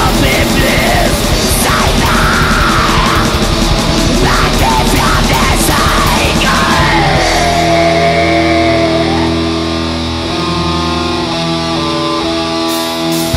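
Black metal recording: dense distorted electric guitars and drums, changing about halfway through to held guitar chords ringing out as the song nears its end.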